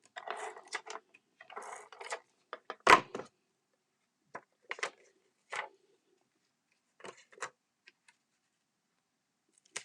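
Cardstock and paper pieces being handled and laid down on a craft table: short rustles and light taps, with one sharp knock about three seconds in.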